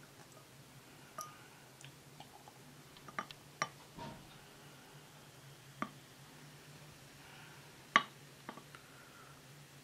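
A few light clinks and taps of a glass and beer bottle being handled, spread out with quiet between them. The sharpest comes about eight seconds in.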